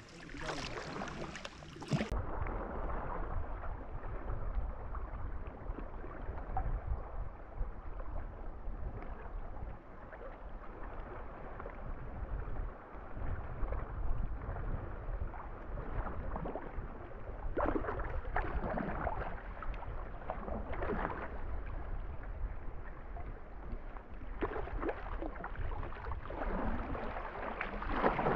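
Water splashing and sloshing around a sea kayak as it is paddled, with wind rumbling on the microphone. The splashes come in clusters in the second half.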